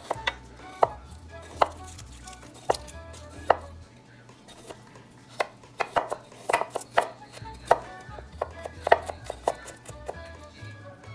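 Kitchen knife slicing garlic cloves and ginger on a wooden cutting board, with sharp, irregular taps of the blade on the wood. The taps come about once a second at first and faster in the middle.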